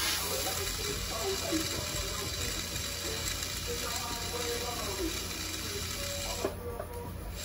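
Jeweller's rotary handpiece spinning a rubber polishing wheel against a gold chain after soldering: a steady small-motor whir with the wheel rubbing on the links, the hiss briefly dropping away near the end.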